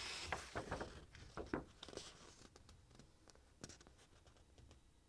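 Pages of a glossy paper brochure being turned by hand: a swish as the page turns at the start, then crinkling and a few soft paper taps that thin out over the next few seconds.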